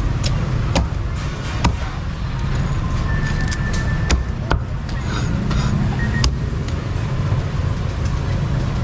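Busy street-market ambience: a steady low rumble of passing traffic with scattered sharp clacks and knocks from the stalls.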